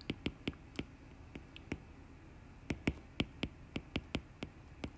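Stylus tip tapping and clicking on a tablet's glass screen during handwriting: a string of light, irregular clicks, most closely packed about three seconds in.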